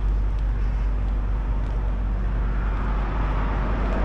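Steady outdoor background noise with a deep, constant low rumble and no distinct events, like road traffic or wind on the microphone.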